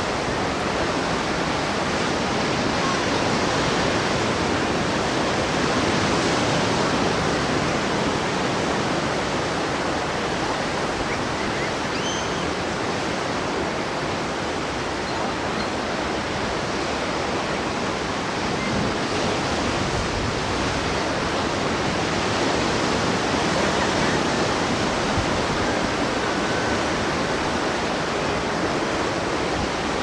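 Ocean surf breaking and washing up a sandy beach: a continuous rush of waves that swells slightly about six seconds in and again later on.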